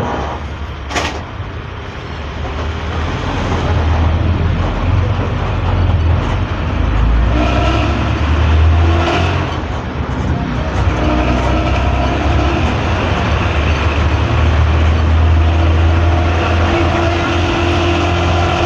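Hino AK3-HR bus engine and exhaust running under way, a loud deep rumble heard from the rear of the cabin with the bus's typical 'ngorok' (snoring) exhaust note. The sound grows louder over the first few seconds, then stays steady.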